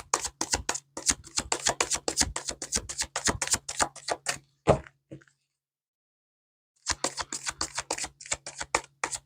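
Tarot cards being shuffled by hand: a fast run of crisp card clicks and flicks, several a second, that stops for about a second and a half midway and then starts again.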